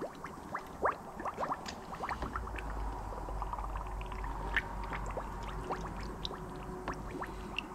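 Coolant being poured from a jug into the cooling system of a 2007 Dodge Caravan, gurgling as it goes in, with many short rising blips several times a second. A low steady hum comes in about two seconds in.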